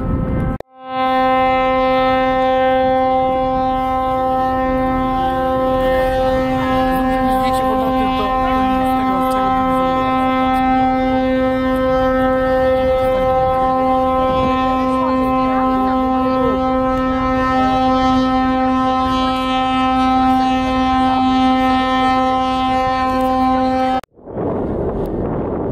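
A ship's horn sounding one long, steady blast that holds a single note for over twenty seconds, cutting off abruptly near the end.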